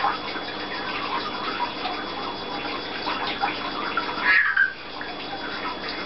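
Water spraying and dripping inside a rain-misted terrarium, a steady splashing hiss with scattered small clicks and chirps. About four seconds in comes one louder, short call that falls in pitch.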